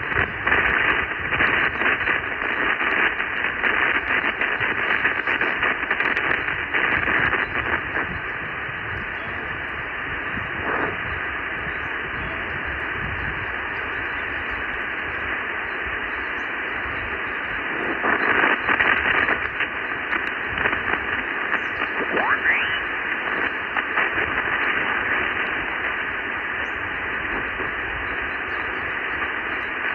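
Amateur radio receiver playing the RS-44 satellite downlink: a steady rush of hiss with faint, garbled signals in it. A little past the middle, a whistle sweeps up in pitch.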